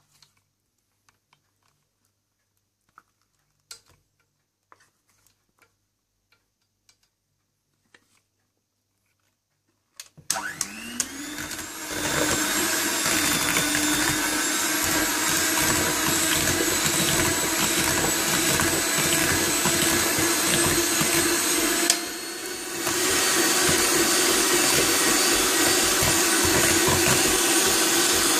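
Electric hand mixer beating mascarpone into whipped egg yolks. After about ten seconds of faint taps, the motor starts with a rising whine and then runs steadily, dropping briefly about two-thirds of the way through.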